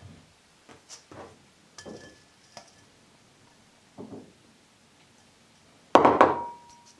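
A spatula scrapes and knocks softly against a glass mixing bowl as it stirs dough. About six seconds in comes the loudest sound, a clatter with a short metallic ring, as the metal mesh sieve is knocked on the bowl to sift cake flour in.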